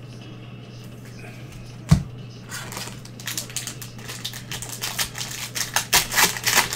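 A single thump about two seconds in, then a quickening run of crinkling and tearing as a trading-card pack wrapper is ripped open, loudest near the end. A steady low hum runs underneath.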